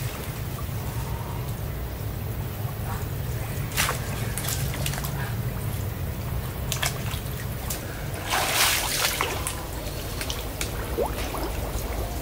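Water sloshing and splashing as a person wades through a shallow pond, with scattered drips and small splashes and one louder splash about eight seconds in, over a steady low rumble.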